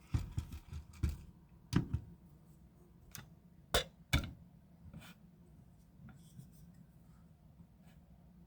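A micarta-handled folding knife being handled and set on a scale to be weighed. There are a handful of sharp clicks and knocks over the first four seconds or so, then only faint room hum.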